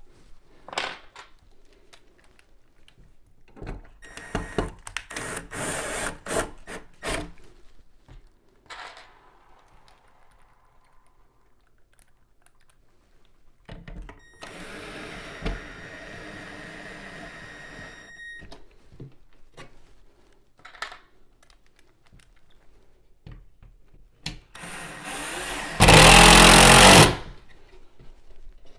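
Power drill driving screws into wall anchors to fix a floating-shelf bracket to drywall: a steady whir of several seconds in the middle and a much louder burst near the end, with handling knocks earlier on.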